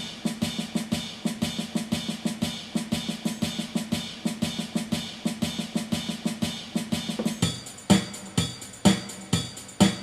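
Yamaha PSR-350 keyboard's auto-accompaniment playing its German March style: a brisk, even drum-kit beat with bass drum and snare under the accompaniment. About seven and a half seconds in, the pattern changes to heavier, more widely spaced beats.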